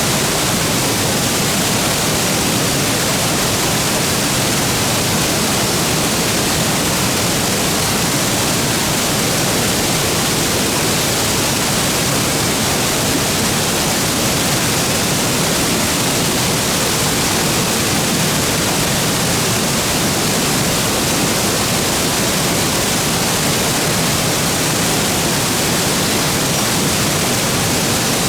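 Steady, loud rush of a waterfall plunging into its pool, a continuous even roar of falling water.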